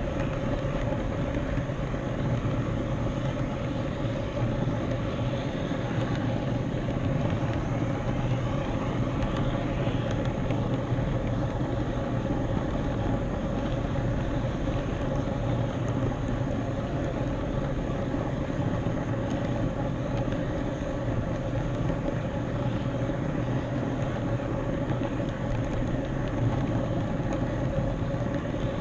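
HO scale model train with an onboard camera car running steadily along the track: continuous rolling noise of the wheels on the rails, with a steady hum.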